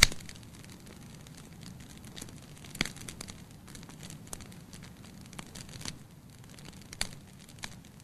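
Firewood crackling and popping as it burns in a fireplace: a sharp pop at the start, louder pops about three seconds in and near the end, and many small crackles over the low steady rush of the flames.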